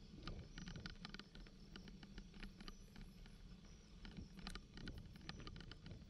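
Bicycle rattling and clicking irregularly as it jolts over a bumpy dirt track, over a low rumble of tyres on the ground.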